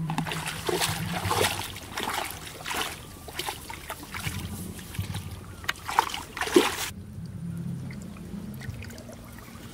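Feet wading quickly through shallow water, a rapid irregular run of splashes and sloshing that cuts off abruptly about seven seconds in.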